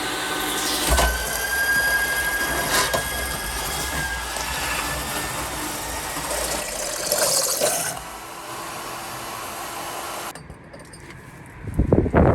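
Core drill running as it bores through a wall, a steady motor sound with a faint whine. It drops off partway through, and a loud burst of rapid knocking comes near the end.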